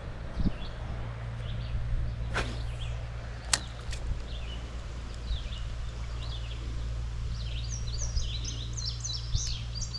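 Songbirds chirping in quick short notes, busiest in the second half, over a steady low rumble. A single swish comes about two and a half seconds in, and a sharp click follows about a second later.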